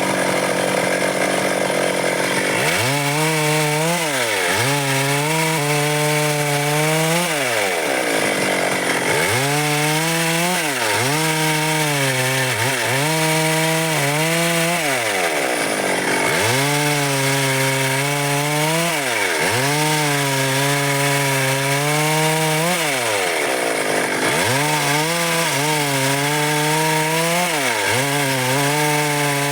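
Stihl MS 382 two-stroke chainsaw cutting dry wood, its engine pitch sagging and climbing back again and again, about a dozen times, with short steady stretches at high speed between.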